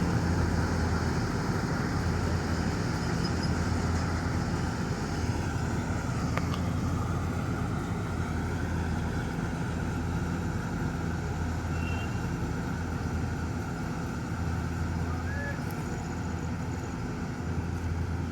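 Kartar 4000 combine harvester running steadily under load while cutting, a continuous low engine hum under a dense machine rumble.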